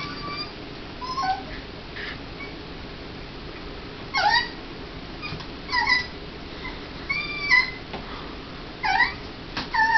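Puppy whimpering over a piece of chicken: a string of short, high-pitched whines, about eight of them, some rising and some falling in pitch.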